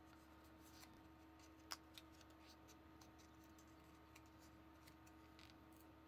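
Near silence: faint ticks and rustles of a paper cutout being handled and fitted together, with one sharper click a little under two seconds in.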